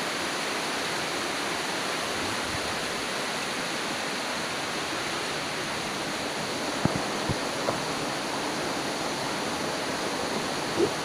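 River water rushing steadily over rocks in a gorge, a continuous even rushing. A few brief knocks sound over it about two-thirds through and again near the end.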